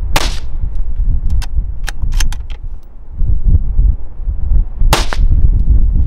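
Two shots from a 17 HMR rifle about five seconds apart, each a sharp crack with a short ringing tail, with a few light clicks between them. Wind rumbles on the microphone throughout.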